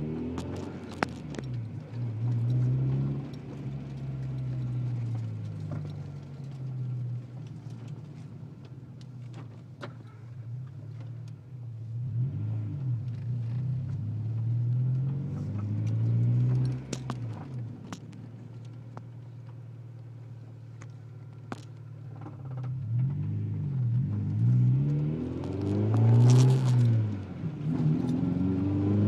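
Integra car being driven, its engine note rising and falling repeatedly as it pulls away and slows, with a few sharp clunks along the way. The car is known to clunk while turning, and the owner has not found the cause.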